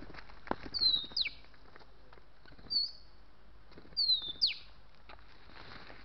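Oriental magpie-robin whistling: two phrases, each a slurred falling whistle followed by a sharp downward-swept note, about three seconds apart, with a short whistle between them. A single dry knock comes just before the first phrase.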